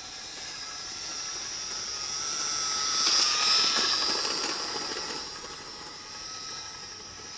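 Electric model train running along its track, a steady high motor whine that grows louder as the locomotive passes close, loudest about three to four seconds in, then fades as it moves away.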